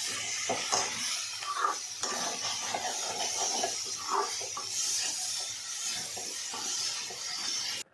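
Mushrooms and onions frying in oil in a pan, sizzling with a steady hiss, while a spoon stirs and scrapes the pan in short irregular strokes.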